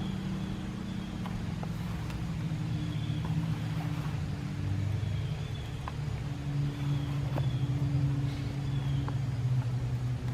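An engine running steadily, its low hum shifting a little in pitch, with a few faint clicks over it.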